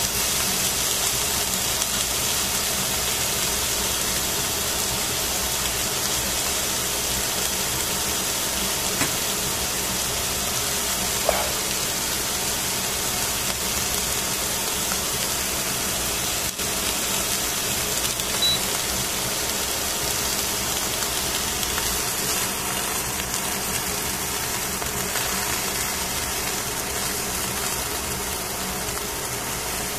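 Steady sizzling hiss of two skin-on fish fillets frying on aluminium foil in a pan, with a few small clicks.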